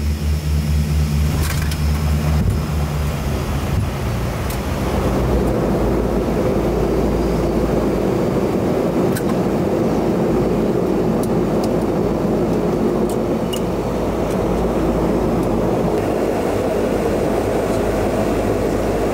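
Dash 8-200's twin turboprop engines and propellers heard from the cockpit on the landing rollout. A pulsing propeller beat for the first two seconds or so changes into a louder, steady roar from about five seconds in, which holds as the aircraft slows on the runway.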